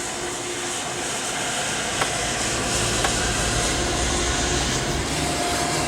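A train passing, a steady rumble and hiss that builds through the middle, heard from inside a car over the car's own running noise.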